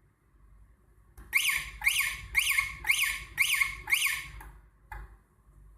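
Car alarm siren sounding six short chirps, each falling in pitch, about two a second, followed by a single click. The chirps answer a long press of the remote's start button with the handbrake wire disconnected.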